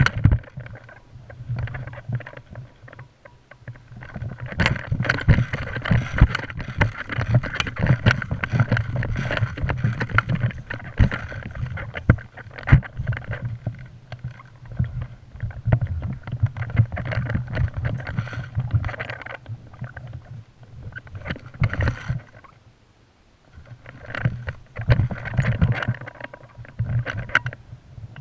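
Rumbling and rustling handling noise from a body-mounted GoPro as its wearer moves, with many irregular sharp knocks. The noise drops away briefly twice.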